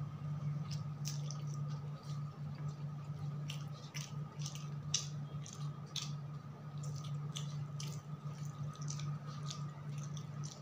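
Fingers mixing and squeezing cooked rice on a metal plate, making irregular soft wet squishing clicks, over a steady low hum.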